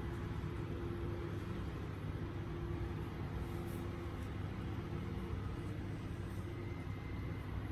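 Steady low background hum and rumble with a faint held tone, and a few faint high ticks about halfway through.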